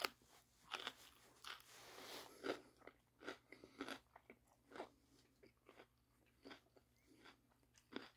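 A person chewing a mouthful of wrap close to the microphone, the lightly blanched potatoes in it still crunchy: quiet, irregular crunches about once or twice a second, the sharpest one right at the start.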